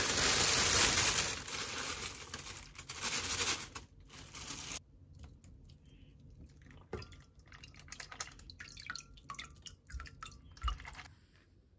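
A black plastic bag rustling loudly as it is pulled off a pot for the first second or two, then water dripping back into the pot from a lifted steel strainer basket of dongjuk surf clams that have just been purged of sand in salted water.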